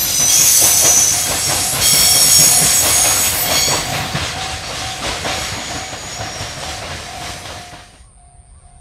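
Container freight train's wagons rolling past over rail joints, clattering with a rhythm of clicks and a high-pitched wheel squeal. The sound fades as the train moves away, then drops to quiet near the end.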